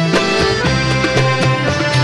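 Sudanese ensemble music: a violin section bowing a sustained melodic instrumental passage over a steady low beat.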